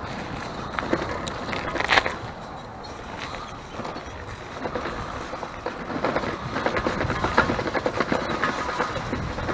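Schwinn bicycle rattling and clattering as it is ridden over a rough surface, with a sharp knock about two seconds in and heavier rattling in the last few seconds.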